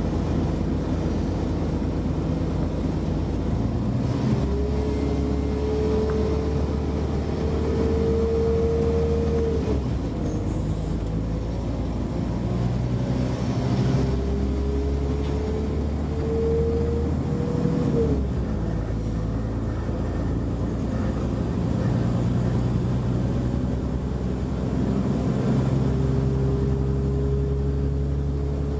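Inside a Class 172 Turbostar diesel multiple unit pulling away: the underfloor diesel engine runs hard under load while a whine climbs in pitch three times, dropping back suddenly each time as the transmission changes up a gear.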